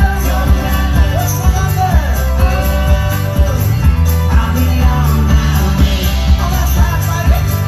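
Live folk-rock band playing: acoustic guitar, banjo, keyboard and drums with a steady beat about twice a second, and singing over it.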